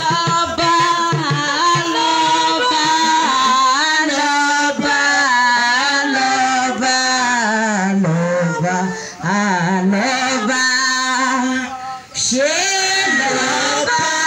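A congregation of men and women singing a worship song together. The singing dips briefly twice, between phrases.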